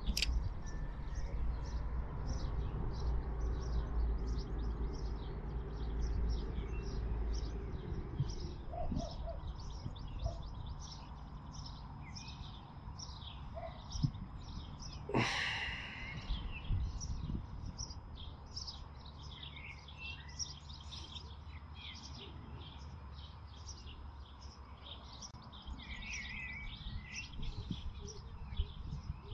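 Small birds chirping repeatedly over a low steady rumble that fades after the first several seconds, with one louder sound about fifteen seconds in.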